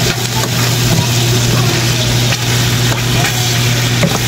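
Adobo sizzling in a pan as its sauce cooks down, over a steady low hum, with a sharp click about four seconds in.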